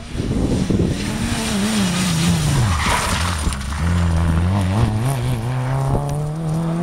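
Rally car engine: the pitch falls sharply about three seconds in, then climbs again in steps as the car accelerates away from the bend, with tyres scrabbling on the dusty road surface.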